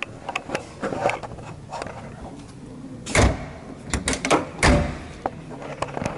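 Car door and cabin fittings being handled: a run of sharp clicks and knocks, with two heavier dull thumps about three seconds in and again just before five seconds.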